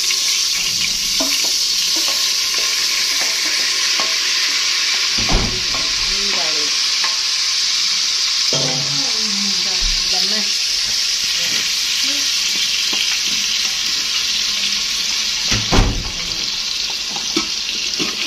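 Chopped garlic sizzling in hot oil in an Instant Pot's stainless steel inner pot on sauté mode, a steady frying hiss, while a wooden spoon stirs it; the spoon knocks against the pot about five seconds in and again, louder, near the end.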